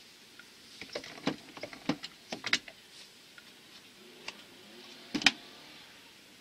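Clicks and knocks of hands handling a wind-up acoustic gramophone's tone arm and soundbox: a quick run of small clicks early on, a single click, then a louder sharp double clack about five seconds in.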